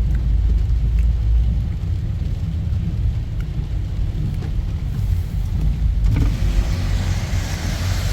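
Car driving on a wet road, heard from inside: a steady low road and engine rumble, with tyre hiss from the wet surface building up near the end.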